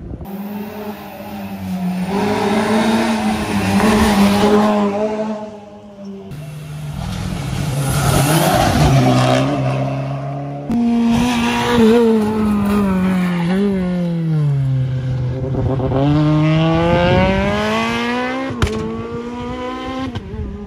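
Rally cars driven flat out on a tarmac stage, the engine note climbing and dropping with gear changes. The sound changes abruptly three times as separate clips are cut together.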